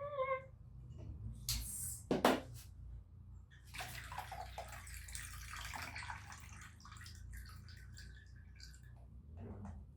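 Water running, as from a kitchen tap, for a few seconds and then tailing off, after a couple of short knocks.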